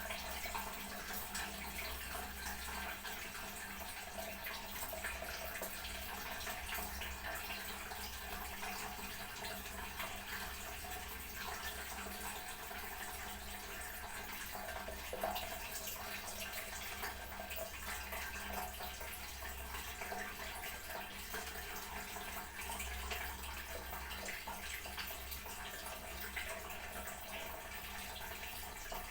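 Toilet cistern refilling, water hissing steadily through the fill valve into the tank.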